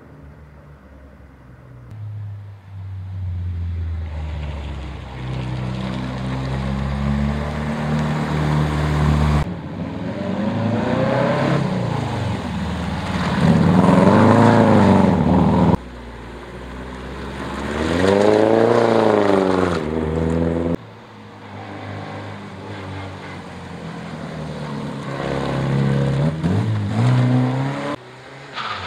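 Classic rally cars driving past one at a time, each engine revving up and easing off as it accelerates through a bend, with sudden changes where one clip cuts to the next. One of them is an orange Porsche 914.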